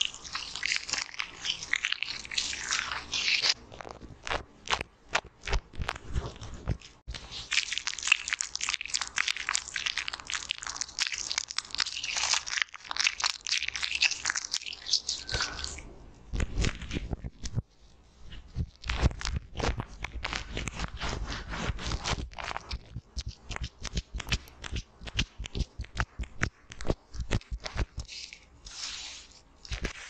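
Hands rubbing and squeezing thick facial-cleanser foam close to the microphone: wet squishing and crackling of bubbles, with dense rubbing stretches at the start and in the middle, then many quick separate pats and taps through the second half.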